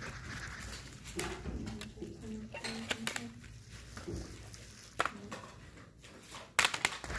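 Plastic CD jewel cases being handled and set against each other: scattered clicks and light clattering knocks, the sharpest a little before the end.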